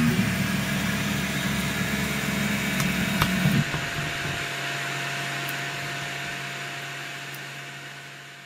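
RepRap Pro Ormerod 3D printer's stepper motors whining through shifting pitches as they drive the print head, with a click or two; a bit over three seconds in the motor movement stops, leaving one steady low hum that fades away.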